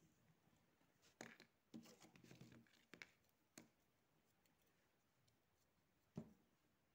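Very faint handling noise: soft rustles and a few small clicks as a pom-pom is handled on a plastic-covered table, then one sharper click near the end.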